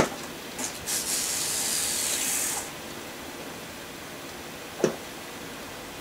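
A click, then a steady high hiss of pressurised gas being let out for about a second and a half. A single knock comes near the end.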